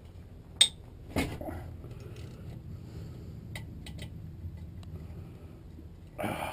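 Hand tools clinking against a transmission case as its bolts are broken loose: a sharp metallic clink about half a second in, a knock a little later, then a few lighter clicks.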